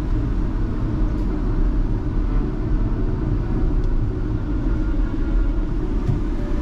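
Steady low rumble of a car on the move: road and engine noise picked up by a dashcam.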